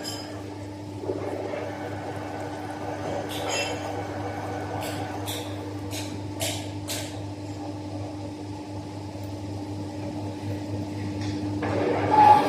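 Komatsu 850 excavator's diesel engine running with a steady hum, with a few short knocks and creaks from the machine between its squeals. Near the end the sound grows louder as the high-pitched squeal starts again.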